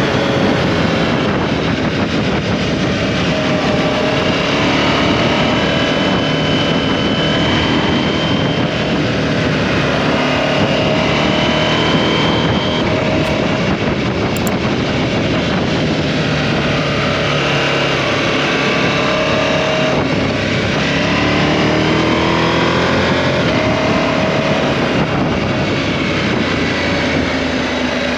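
KTM 790 Adventure's parallel-twin engine under way, its pitch rising and falling repeatedly with throttle and gear changes, over a steady rush of wind and road noise.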